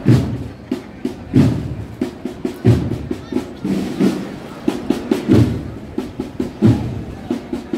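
Processional drum band playing a slow march: a heavy bass drum beat about every second and a half, with quick snare drum strokes between the beats.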